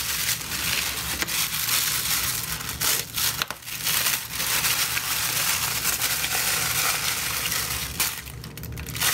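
Black plastic mailer bag crinkling and crackling as hands handle and open it, with a couple of brief pauses, dying down near the end.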